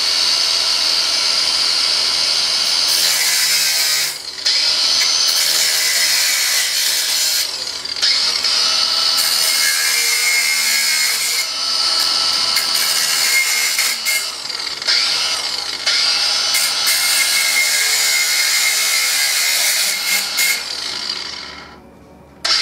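Handheld power tool cutting notches in heavy-duty galvanized steel mesh, running almost continuously with a few brief pauses and stopping shortly before the end.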